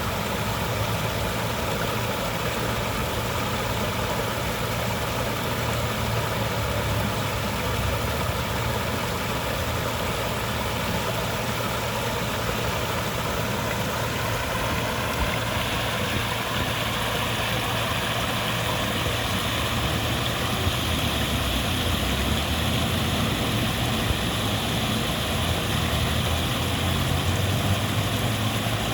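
Waterfall: a steady, dense rush of falling water with a deep rumble underneath, the hiss growing a little brighter about halfway through.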